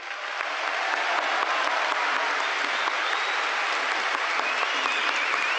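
A large concert audience applauding, the clapping building over the first second and then holding steady.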